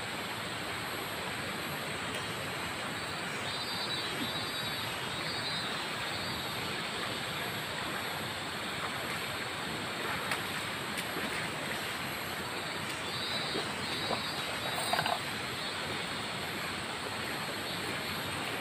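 Steady rush of flowing river water. A few faint high chirps come through twice, about a fifth of the way in and again about three quarters of the way in.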